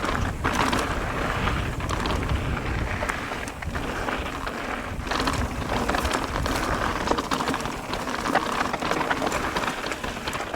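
Mountain bike rolling fast down a dirt trail, tyres crackling over gravel and small rocks with scattered clicks and rattles, and wind buffeting the microphone with a low rumble.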